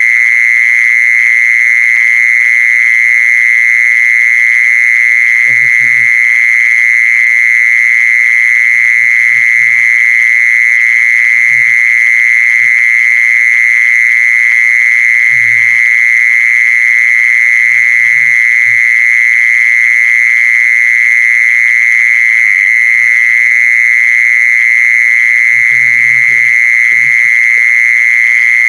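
Continuous, loud, steady trill of the insect called แมงจีซอน in Thai, its call recorded for playing back as a lure. It never breaks or changes pitch.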